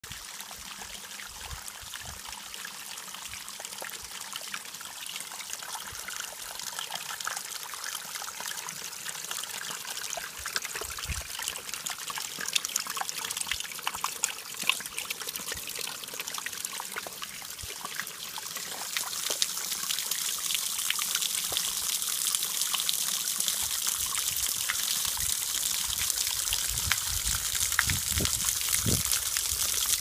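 Water from a spring-fed garden waterfall trickling and splashing onto stones and pebbles. The splashing grows louder about two-thirds of the way through.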